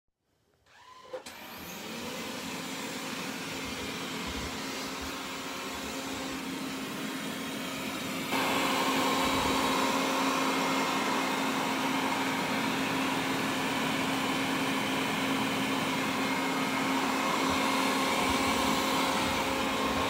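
Wyze robot vacuum starting up: a click about a second in, then its fan and brushes running with a steady hum. The sound steps up louder and brighter about eight seconds in and then holds steady.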